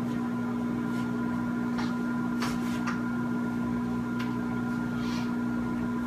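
Over-the-range microwave oven running with food inside, a steady hum, with a few faint clicks.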